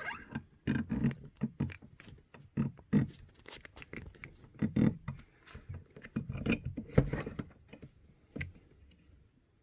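Small parts of an airsoft rifle's hop-up chamber being handled and worked apart by hand: irregular clicks, taps and light scrapes with some dull knocks, thinning out near the end.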